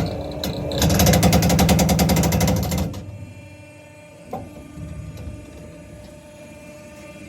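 POR junior hydraulic briquetting press working through its compression stroke. A loud, rapid, rhythmic mechanical chatter stops abruptly about three seconds in and leaves a quieter steady hum. A single clunk follows about a second later.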